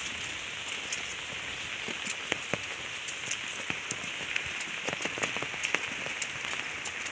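Heavy rain falling steadily, with many scattered sharp drop hits standing out from the hiss.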